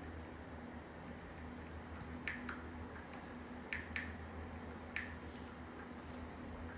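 A steady low hum, with about five short, sharp clicks a little after two seconds in, near four seconds and near five seconds, each dropping slightly in pitch.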